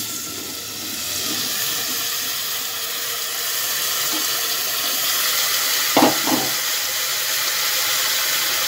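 Chopped, freshly washed bottle gourd sizzling as it drops into hot oil and spices in an open pressure cooker: a steady, loud hiss. Two short knocks about six seconds in.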